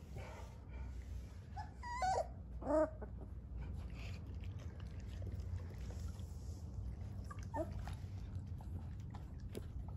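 Three-week-old Dogo Argentino puppies giving short, high, wavering whines: two close together about two seconds in, the second the loudest, and a fainter one later on, over a steady low hum.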